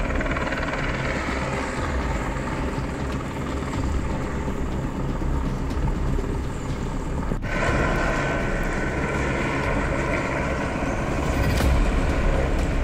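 Helicopter flying overhead, its rotor and engine a steady, pulsing drone heard from the ground. About seven seconds in it cuts abruptly and picks up again slightly louder.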